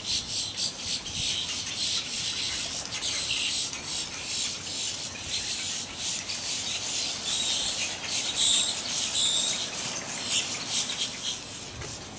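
Birds chirping in short repeated calls over a steady high hiss.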